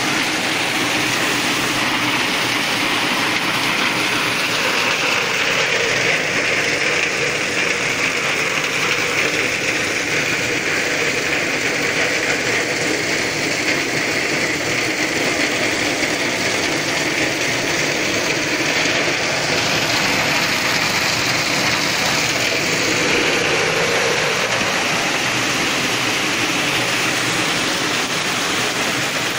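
Steady rain falling on corrugated metal roofing and sheeting, with runoff pouring off the roof edge and splashing onto a metal sheet.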